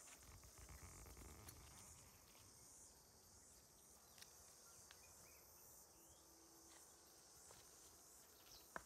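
Near silence in the bush: a faint, steady high insect chirring, with a few faint ticks and snaps of twigs and footsteps on the forest floor.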